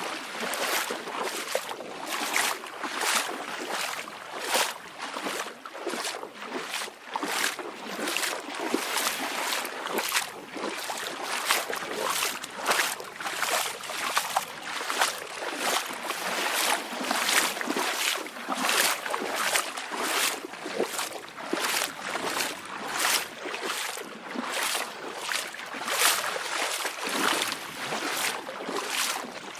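Small waves lapping and splashing at the water's edge: a continuous wash of water broken by short, irregular slaps about twice a second.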